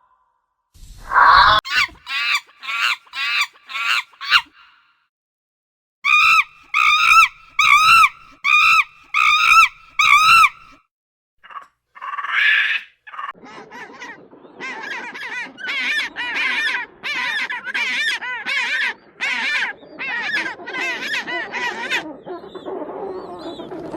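Waterfowl honking in repeated series of short calls, about two a second, with brief pauses between the series. The last and longest series has a whole flock calling underneath.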